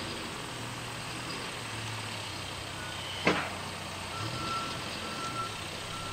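Heavy equipment's backup alarm starts beeping about four seconds in, a steady high tone about once a second, over a steady low diesel engine hum. A single sharp clank comes just before the beeping starts.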